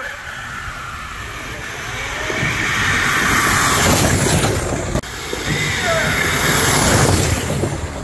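Two belt sanders running flat out as they race down a wooden track, their motors and sanding belts making a loud, dense mechanical noise with a high whine on top. The noise builds over the first few seconds, stays loud through the middle and eases off near the end.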